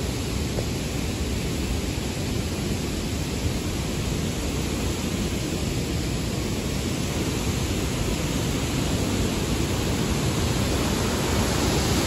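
Steady rush of a waterfall, an even continuous noise that slowly grows louder toward the end.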